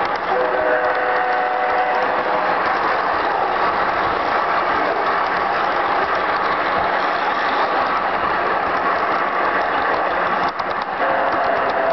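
Model train on a garden railway running close to the microphone: steady gear and wheel rattle, with a brief dip about ten and a half seconds in.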